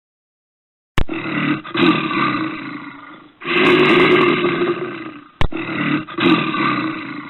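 A bear's roars: three long, rough calls, the first starting about a second in, each beginning abruptly.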